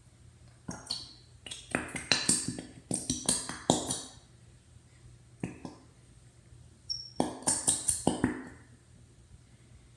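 A glitter container shaken and tapped while glitter is poured out into glue: quick clicks and taps in two bursts, the first lasting about three seconds and the second about a second near the end.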